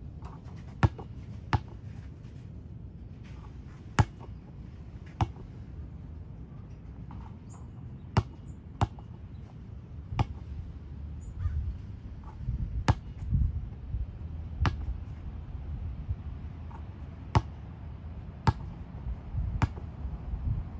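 Basketball bouncing on an outdoor concrete court: single sharp smacks at irregular gaps of one to three seconds, sometimes two close together, about a dozen in all.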